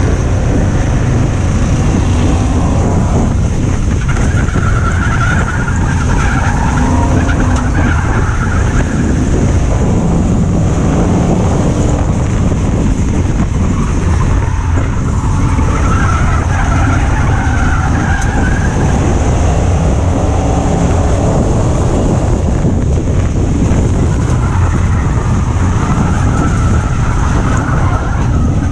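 Ford Crown Victoria V8 race car engine running hard, heard loud from inside the cockpit, its note rising and falling several times as it drives on and off the throttle around the dirt track.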